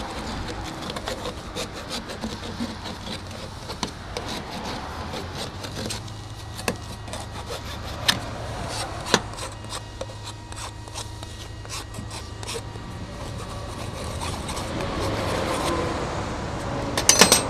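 Hand file rasping over the freshly cut end of a plastic PTO shaft guard tube, deburring it, in uneven strokes with a few sharper clicks from the file knocking the tube.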